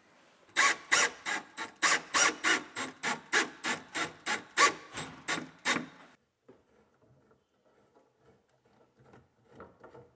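Quick, even rasping strokes, about four a second for five or six seconds, then cutting off; faint light clatter follows.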